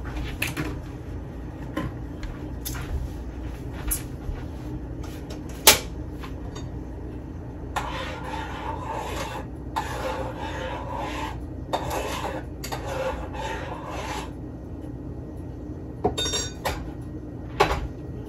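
Cooking clatter at a stove: a saucepan, utensils and cupboard doors knocking and clinking, over a steady low hum. There is a sharp knock about six seconds in and a longer stretch of scraping from about eight to fourteen seconds.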